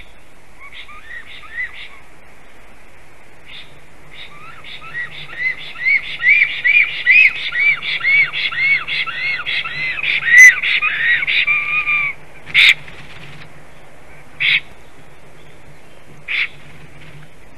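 Black stork singing: a long run of rising-and-falling notes, about two a second, that grows louder and then stops, followed by three short sharp calls a couple of seconds apart.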